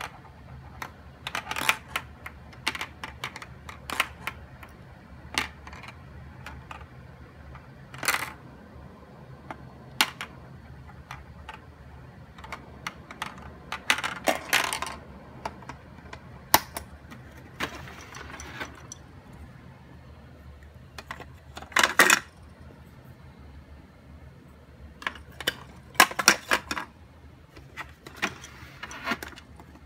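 Hard plastic clicks and clatter from a toddler's Anpanman activity box being played with by hand, as a knob is slid around its clear maze panel and other parts are worked. The clicks come irregularly, some single and sharp, with short rattling runs about halfway through and again near the end.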